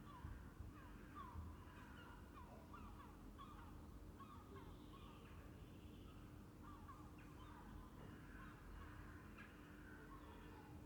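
Room tone of a small room with an open window: faint birds chirping outside in many short, quick calls, over a steady low hum.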